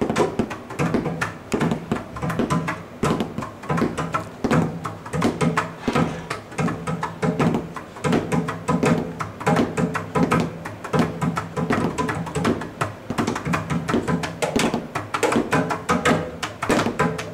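Improvised harsh-noise playing on junk objects: dense, irregular banging and clattering, several hits a second, over a low steady hum.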